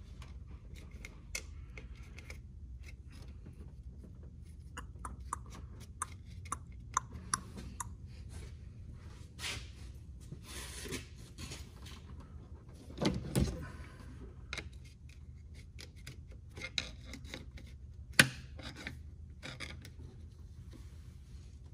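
Hand tools working on the plastic intake cover and its trim rail of a Cadillac CTS 3.2: scattered small clicks and short scrapes, a louder knock about 13 seconds in and a sharp clack about 18 seconds in. Near the end, a long screwdriver is levered and rubbed against the cover's rail.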